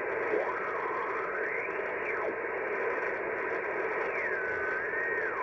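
HF transceiver's receiver audio on the 20-metre phone band as the tuning dial is spun upward: steady band hiss, with faint whistles sliding in pitch as it tunes across signals. About four seconds in, a clearer whistle glides down and wavers. The band is quiet, with little noise on it.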